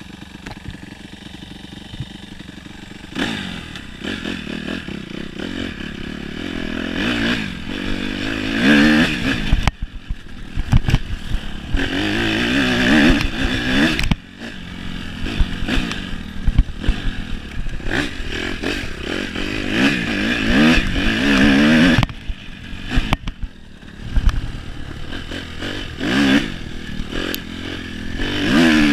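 Suzuki RM-Z four-stroke single-cylinder motocross bike idling steadily for about three seconds, then ridden off, its engine revving up and falling back again and again with several sudden throttle cuts. Short knocks and rattles from the bike run under the engine.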